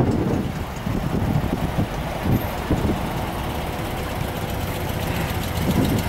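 Air-cooled flat-four engines of classic Volkswagen Beetles running as the cars roll slowly past close by, a steady low rumble.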